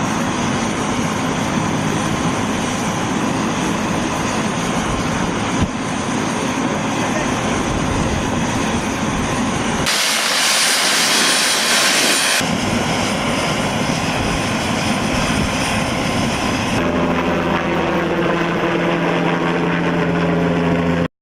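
Loud, steady engine drone with a hissing rush that turns brighter for about two seconds in the middle, then steadier pitched tones near the end before cutting off suddenly.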